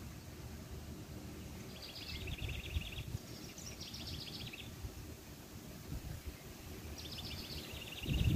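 A small songbird singing three short trilled phrases, each opening with a few higher notes and dropping into a quick, lower trill. A low rumble of wind on the microphone runs underneath.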